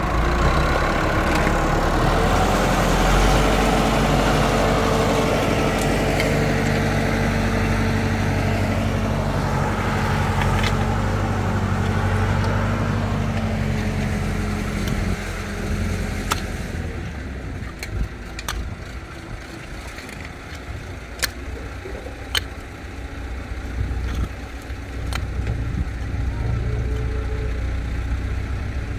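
Diesel engine of a 285 farm tractor working as its front loader pushes earth, then running more quietly from about halfway through. In the second half come a few sharp clicks and knocks of rocks being handled on the dirt.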